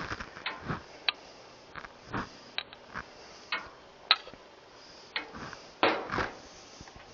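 Irregular light clicks and knocks of kitchen utensils and dishes being handled, about a dozen scattered over several seconds, the loudest about two seconds in and about six seconds in.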